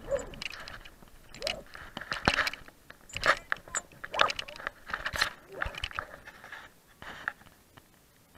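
Close, irregular rustling, scraping and clicking of a climbing harness, rope and clothing rubbing and knocking against a body-worn camera during a rope-access rescue.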